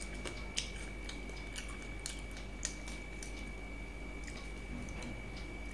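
A person chewing a mouthful of rice and fried egg, with scattered small wet mouth clicks close to the microphone.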